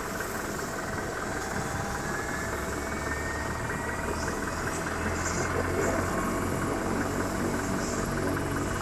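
Agusta A109 helicopter on the ground with its rotors turning: a steady turbine whine over rotor and engine noise, growing a little louder about five seconds in.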